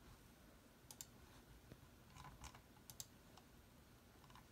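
Near silence with a few faint, scattered clicks of a computer keyboard and mouse.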